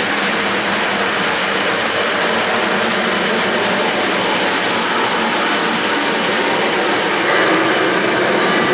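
O-gauge model freight train rolling on three-rail track: a steady rumble and clatter of wheels on the rails. A few faint steady tones come in near the end.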